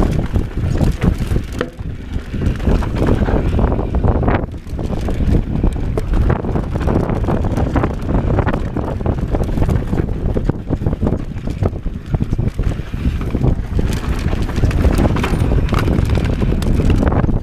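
Mountain bike riding fast down a dirt singletrack: heavy wind noise on the microphone over the rumble of tyres on dirt and the rattle and knocks of the bike over bumps.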